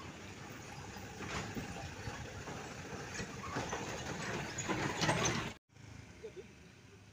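Diesel truck engines and tyres on a rough road as a loaded truck passes close by, growing louder with a few knocks until the sound cuts off abruptly about five and a half seconds in; quieter traffic follows.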